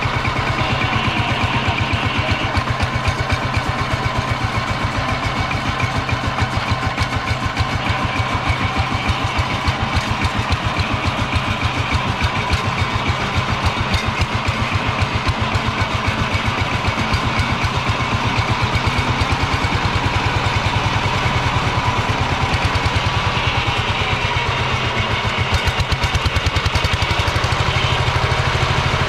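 Single-cylinder diesel engine of a two-wheel power tiller running steadily, with an even, rapid chugging beat.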